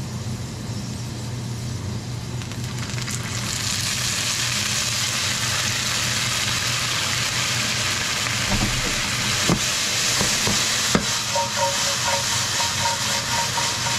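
Kabocha squash skin strips sizzling in a hot nonstick frying pan, the sizzle growing louder about three seconds in as soy sauce goes into the pan to finish the kinpira. A couple of sharp knocks near the end as the pan is tossed.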